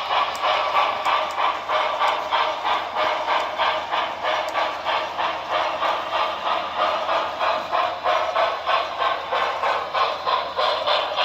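Sound-equipped HO scale Broadway Limited Paragon4 New York Central 4-6-4 Hudson model locomotive playing recorded steam exhaust chuffs through its onboard speaker, a steady rhythm of about four chuffs a second as the model runs.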